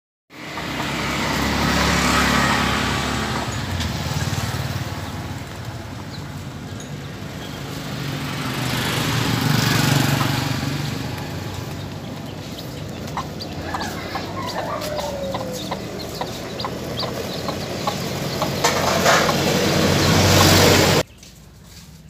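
Caged quail chicks chirping and clicking under a loud, steady rushing noise that swells and fades. The noise stops abruptly near the end.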